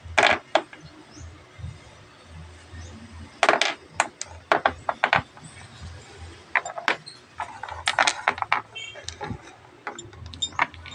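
Small hard stones clicking and knocking against a metal piece and a tabletop as they are handled: a dozen or so sharp clacks scattered irregularly, some in quick clusters.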